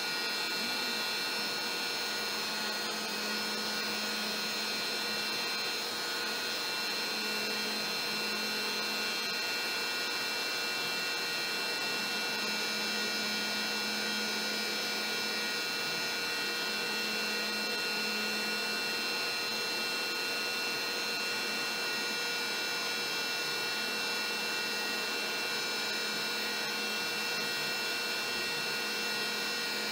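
Trim router on a LowRider v3 CNC running with a 1/8-inch bit, drilling and slotting MDF: a steady high-pitched whine with several pitches held constant over the noise of the cut.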